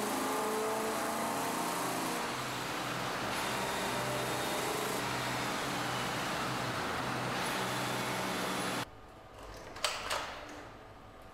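BMW M3 engine running on a dynamometer test bench, its pitch drifting up and down slightly. Nearly nine seconds in the engine sound cuts off abruptly, leaving a quieter background with two sharp mechanical clacks.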